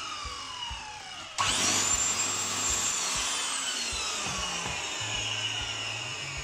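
Hitachi 945BR wet-and-dry vacuum cleaner's brushed motor being test-run after new carbon brushes and a cleaned armature. Its falling whine dies down, jumps back loudly about a second and a half in, and then slowly falls again. The motor runs without trouble: fixed.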